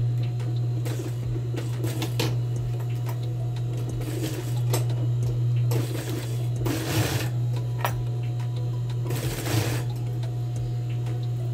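Industrial sewing machine stitching an invisible zipper in several short runs, the longest about seven seconds in and another near nine and a half, over a steady low hum.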